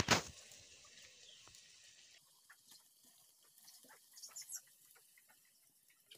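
A ladle knocks against a metal wok at the start, then faint crackling and ticking of dough frying in hot oil. A few faint high chirps come about four seconds in.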